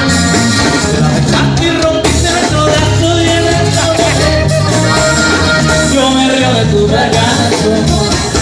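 A live band playing Latin American music, with a bass line, a steady beat and singing.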